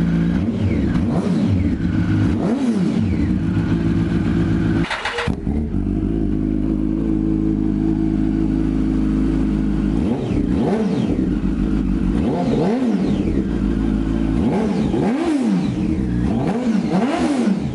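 Yamaha YZF-R1 inline-four sportbike engine idling on a rear stand and revved in a series of quick throttle blips that rise and fall in pitch. There is a brief break about five seconds in, then steady idle for a few seconds before the blips start again.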